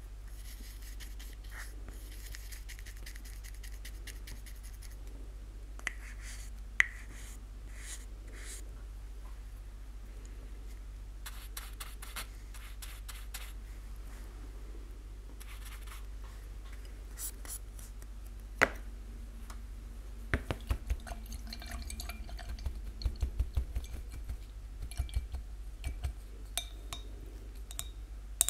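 Paintbrush bristles scratching against the inside of a thin plastic cup as paint is brushed on, with a few sharp clicks. From about 20 seconds in, the brush taps repeatedly against a glass jar of water as it is rinsed. A steady low hum runs underneath.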